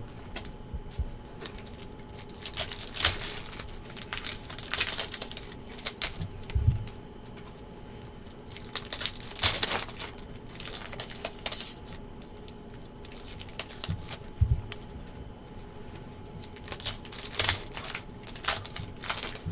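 Trading-card pack wrappers crinkling and being torn open, with cards handled and shuffled, making irregular rustles and a few soft thumps.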